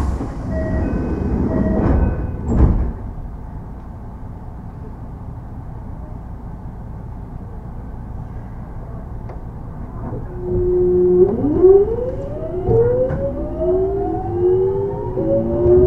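The early Mitsubishi GTO VVVF inverter of a Kintetsu 3200 series electric train, heard on board. After a short thump about two and a half seconds in and a quieter stretch of running noise, it sets in about ten seconds in as a steady whine. The whine then splits into several tones rising in pitch together as the train accelerates.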